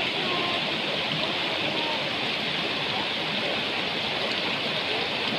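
Rocky mountain river rushing over stones, a steady, unbroken hiss of running water.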